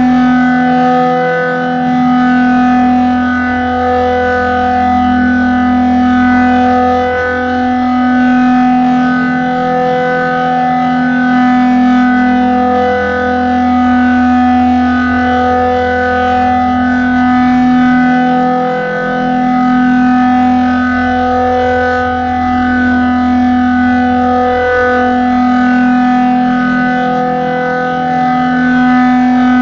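Civil-defense-style warning siren sounding a steady chord of several tones, with a regular pulsing swell about every two seconds and a brief dip in the low tone roughly every six seconds.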